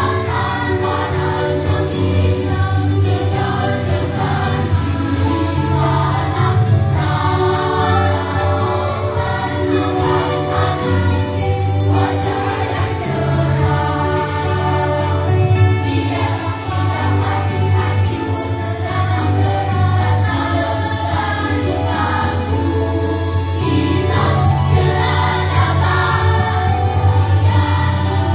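Primary-school children's choir singing, the mixed voices of boys and girls carrying on without a break.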